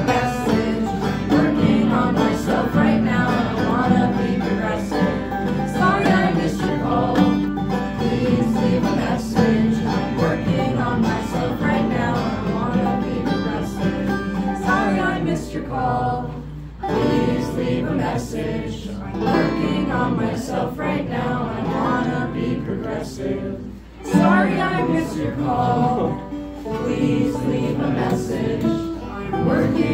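Live acoustic folk-punk music: an acoustic guitar strummed together with a banjo, with singing over it. The music thins briefly twice, about halfway through and again a few seconds later.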